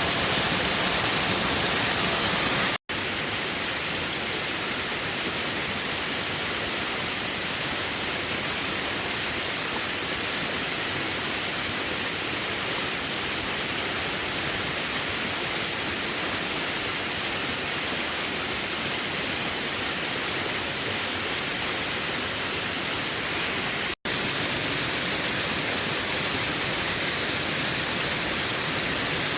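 Steady hiss of rain or rushing water, even throughout, broken twice by a momentary cut-out: once about three seconds in and again about five seconds before the end.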